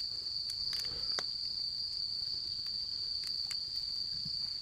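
Steady, high-pitched chorus of crickets, unbroken, with a few faint clicks.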